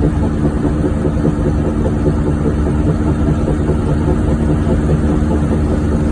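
1994 Geo Metro driving at a steady pace: even engine and road rumble with a steady low hum over it. The car has a bad wheel bearing.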